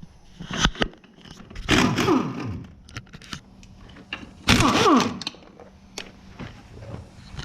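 Metal knocks and scrapes from tools working on an ATV wheel: several short sharp knocks and two longer, louder scraping bursts, about two seconds and about five seconds in.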